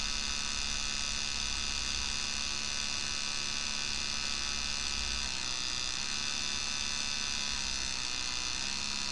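Steady electrical hum with many overtones from the powered FAC-1 lambda control unit's bench setup. Partway through, some of the tones bend slightly in pitch while the unit's frequency trimmer is being turned.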